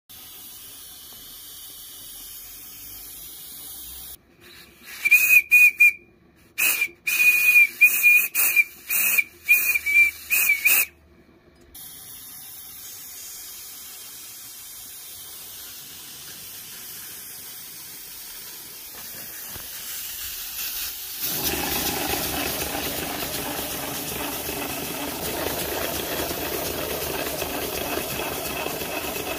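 Steam whistle blown in a string of about ten short blasts on one high, slightly wavering note, over the hiss of a small live-steam boiler. From about 21 seconds in, a louder steady rush of steam takes over as steam is fed to a model compound steam engine, which runs wreathed in escaping steam while it drives a small generator.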